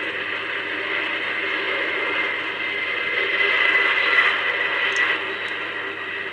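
Four-engine jet noise from Air Force One, a Boeing VC-25A (747), at takeoff thrust: a steady roar that swells to a peak about four seconds in, then eases. It is heard thin and band-limited through a livestream's audio.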